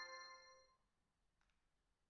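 The last notes of an Alcatel OT-808 mobile phone ringtone, several tones at once, fading out within the first second through the phone's small speaker. Then near silence, with one faint click about one and a half seconds in.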